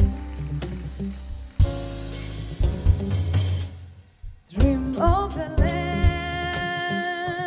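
Live band with drum kit, bass and guitar playing. A cymbal swell fades into a short pause about four seconds in, and then female voices come in singing.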